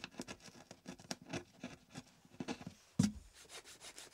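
Narrow hand chisel paring small chips from straight-grained wood in short scraping cuts, a sharp knock about three seconds in, then quick fine strokes of a small piece being worked against a file.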